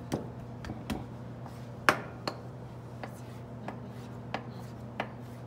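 Knife cutting beef striploin trim on a wooden butcher block: irregular sharp knocks of the blade against the board, the loudest about two seconds in.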